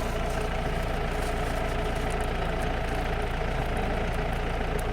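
A vehicle's engine running with a steady, even drone.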